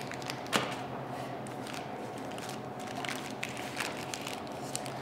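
Scattered small clicks and taps of handling, the sharpest about half a second in, over a steady background hum with a faint steady tone.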